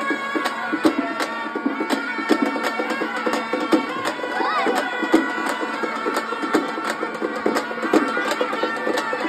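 Traditional procession music: a reed wind instrument playing a held, wavering melody over a steady drum beat, with crowd noise underneath.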